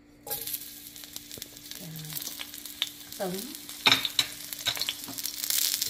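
Garlic cloves dropped into hot oil in a wok: a sizzle starts suddenly just after the start and grows louder and denser. Short sharp clicks and pops run through it, the loudest about four seconds in.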